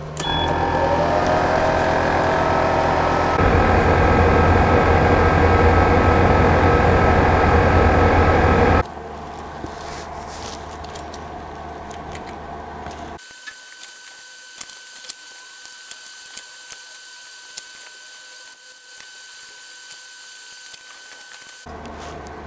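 Desktop laser cutter's fans spinning up with a rising whine, then running with a steady loud hum that gets louder about three and a half seconds in and stops about nine seconds in. After that there is only a quiet steady hiss with scattered light clicks.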